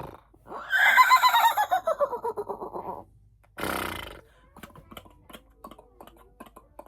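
A person's voice imitating an animal call: one quavering cry that falls steadily in pitch over about two and a half seconds, followed by a short breathy hiss, then faint scattered clicks.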